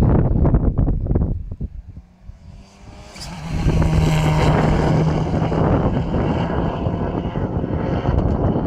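Wind buffeting the microphone for the first second and a half, then a Subaru Impreza rally car's flat-four engine closing in and passing flat out on the stage road, holding a steady high note for about two seconds as it goes by before easing away.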